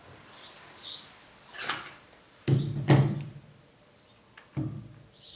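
Handling noise from a Kase Armour filter holder being taken off a camera lens and set down on a wooden table: a brush of movement about a second and a half in, then two loud knocks with low thuds close together, and a smaller knock near the end.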